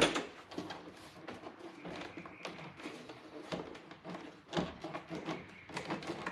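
Irregular clicks, knocks and scraping of hard plastic being handled and pried, as a glued-on side mirror is worked free of a car door panel. The loudest knock comes right at the start, with others about three and a half and four and a half seconds in.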